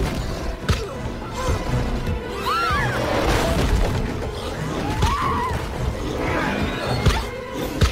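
Action-scene film soundtrack: dramatic music with sharp crashes and thuds about a second in and twice near the end, and short gliding cries in between.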